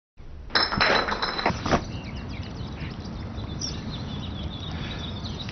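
Outdoor garden ambience with small birds chirping over a steady background hiss. A few sharp clinks or knocks sound in the first couple of seconds.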